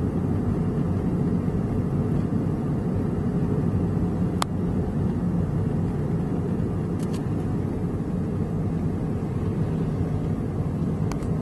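Steady low rumble of road and engine noise inside a moving car, with a single sharp click about four and a half seconds in.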